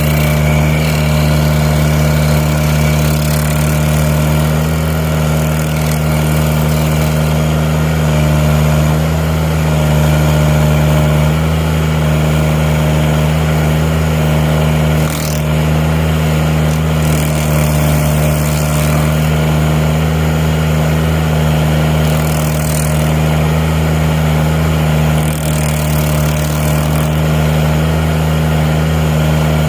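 Tobroco Giant SK252 mini loader's engine running steadily, driving the hydraulics of a Klou stump grinder attachment.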